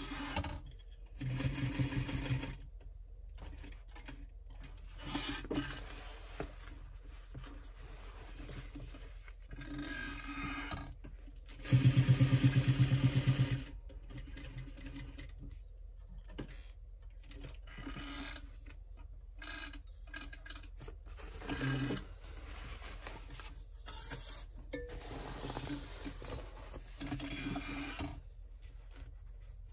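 Sewing machine stitching through woven bag fabric in several short runs, sewing on a bag handle, with pauses between runs while the fabric is turned. The loudest run comes about twelve seconds in and lasts under two seconds.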